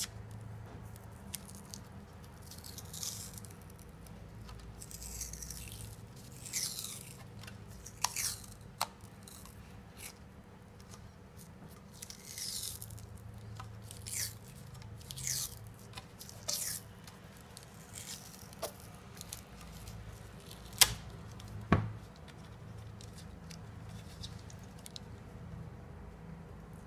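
Black hockey tape being peeled off the roll and wrapped around a hockey stick shaft, making a series of short ripping peels at irregular intervals. Two sharp clicks a little under a second apart, the loudest sounds, follow later on.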